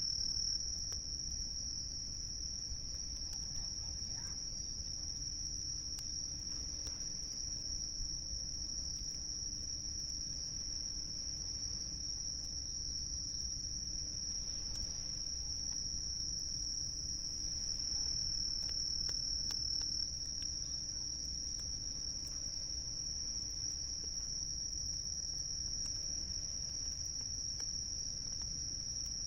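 Insects trilling in one steady, unbroken high-pitched tone, with faint scattered crackles of a campfire underneath.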